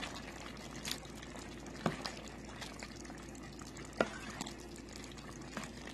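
A thick, wet stew of ground beef and vegetables sloshing as a plastic spoon stirs and scoops through it in a steel pot. Three light clicks of the spoon knocking the pot come about one, two and four seconds in.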